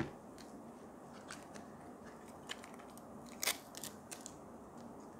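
A small hard-plastic multi-connector charger being picked up off a table with a knock at the start, then turned over in the hands, its plastic parts clicking a few times, with the sharpest clicks about three and a half seconds in.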